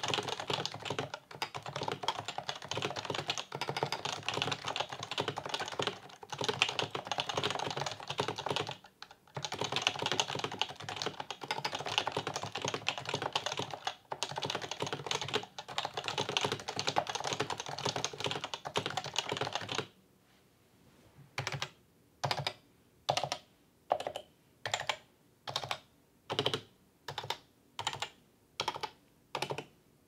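Stock HHKB Professional 2 with 45 g Topre electrostatic capacitive (rubber dome and spring) switches being typed on quickly, a dense run of key presses with short breaks. About two-thirds of the way through the fast typing stops and about a dozen single key presses follow, a little over half a second apart.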